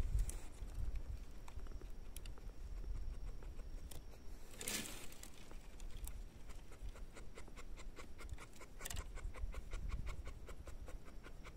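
Faint, quick, even panting, most regular in the second half, over a low handling rumble, with a brief rustle about five seconds in.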